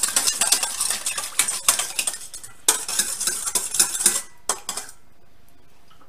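Wire whisk beating an olive-oil and balsamic dressing in a stainless steel bowl: a rapid clicking of the wires against the metal. It pauses briefly, resumes, ends in a few slower strokes and stops about a second before the end.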